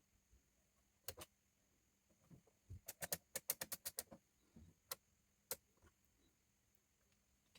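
Light, sharp clicks and taps of small hard parts being handled during a phone repair: two, then a quick run of about ten, then a couple more.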